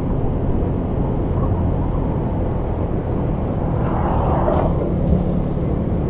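Riding noise on a moving motorcycle: a steady low rumble of wind on the microphone with the engine running underneath. About four seconds in, a brief louder rush comes as another vehicle is passed close by.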